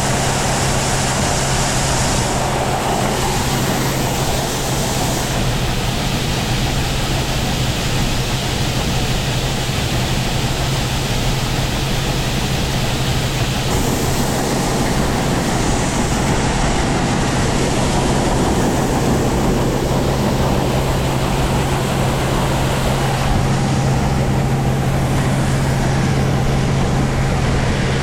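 Grain-handling machinery running steadily as corn is run into a bin: a constant low hum under an even rushing noise.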